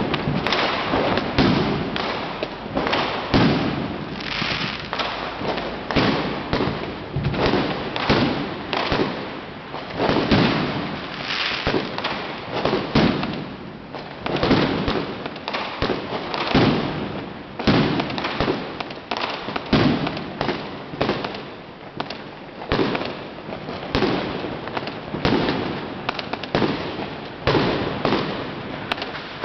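Aerial fireworks bursting in a dense, unbroken run of loud bangs, several a second, each with a short echoing tail.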